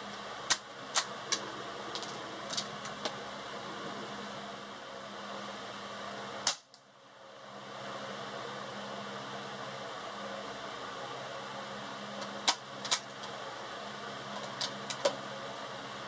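Quiet, sharp cracks and clicks of a Glenfield Model 20 bolt-action .22 firing low-velocity CB short rounds, a reduced charge about as quiet as a suppressed long rifle. There are about ten short cracks, several in close pairs, over a steady faint hiss; the loudest comes about halfway through.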